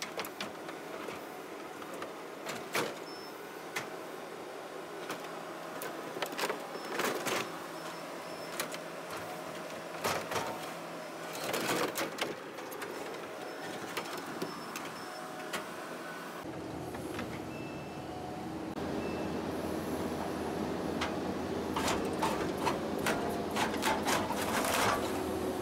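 Kubota skid steer engine running while its grapple bucket picks up scrap metal gates and pipe, with scattered metal clanks and bangs. The engine grows louder and heavier about two-thirds of the way through, with a quick run of clanks near the end.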